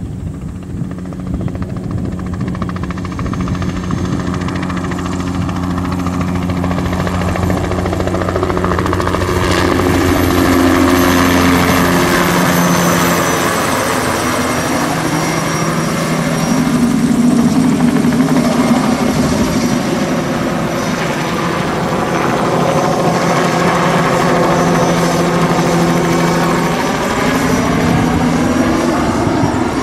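Bell 206B-3 JetRanger III helicopter on low spraying passes: the steady beat of its two-blade main rotor over a thin high turbine whine from its Allison 250 turboshaft. The sound swells as it comes close, loudest about a third and again about halfway through, and its tones bend in pitch as it sweeps past and banks.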